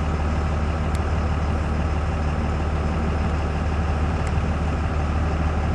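Steady low rumble of a car running, heard from inside its cabin, with a couple of faint clicks.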